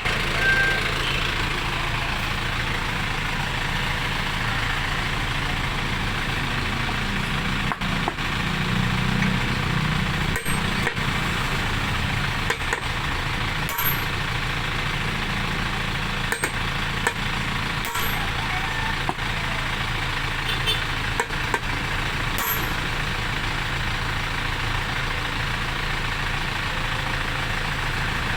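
A motor vehicle engine running steadily at idle, with a few light clicks and knocks scattered through it.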